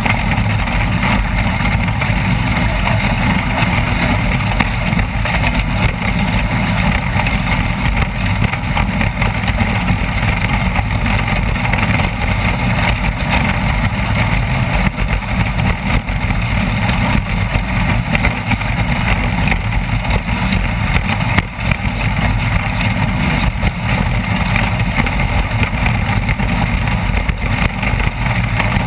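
Off-road race vehicle running hard at speed: a steady, loud engine din mixed with rushing wind and rattling noise, with a brief dip about 21 seconds in.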